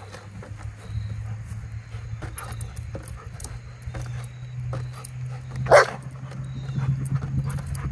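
A goldendoodle gives a single short, loud bark about six seconds in, amid scattered light clicks and rustles as it plays with two foil balloons. A steady low hum runs underneath.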